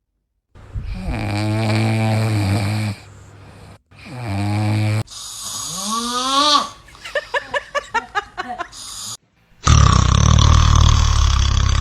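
Sleeping dogs snoring: several separate snores with a pitched, raspy buzz. About six seconds in, one rises sharply in pitch into a whine. It is followed by a quick run of short puffs, about six a second, and a loud, harsh snore near the end.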